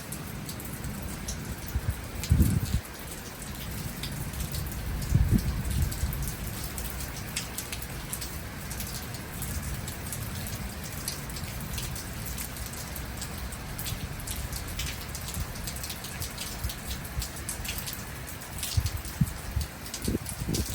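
Steady rain falling, with many individual drops ticking sharply on a surface. A few brief low thumps stand out, about two and five seconds in and again near the end.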